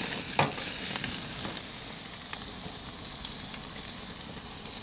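Stuffed matambre meat roll sizzling on a hot gas grill, its fat melting and dripping onto the hot plates below, with a steady hiss and small crackles. A single knock comes about half a second in.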